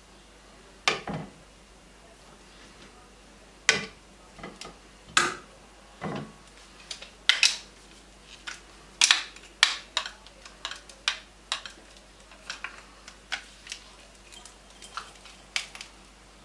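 Irregular sharp clicks and knocks of a plastic potato ricer being handled against a glass bowl as boiled potatoes are loaded and pressed through it. The knocks come more often in the second half.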